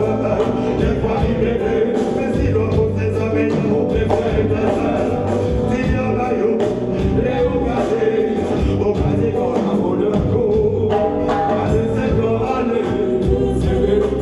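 Live reggae band playing, with drums, guitars and keyboard under male vocals sung into microphones, amplified through the stage sound system.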